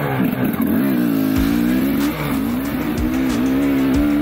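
KTM 250 XCW two-stroke single-cylinder dirt bike engine running hard under throttle while ridden, its pitch mostly held with a few brief dips as the throttle eases off.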